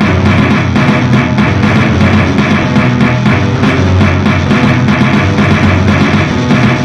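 Loud, dense electronic noise music made on a synthesizer and sequencer: a thick wall of sound over a steady low drone, with a fast, even pulse running through it.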